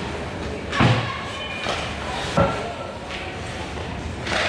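Ice hockey play echoing in a large indoor rink: skates scraping the ice, with two sharp knocks, about a second in and again halfway through, from the puck and sticks striking the boards.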